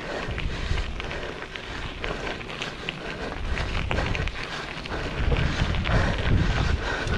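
Giant Revel mountain bike riding over a rough dirt trail: tyres crunching and the bike rattling with many short knocks and clicks, while wind buffets the microphone. The wind rumble grows heavier about five seconds in.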